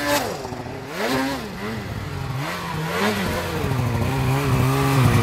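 Two-stroke snowmobile engine blipped in several short revs that rise and fall, then held at a steadier speed for the last couple of seconds as the sled churns in deep powder.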